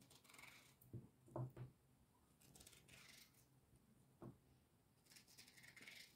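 Kitchen knife slicing lengthwise through a raw zucchini, three drawn-out slicing strokes, with a few soft knocks of the blade and slices on a plastic cutting board in between. Faint.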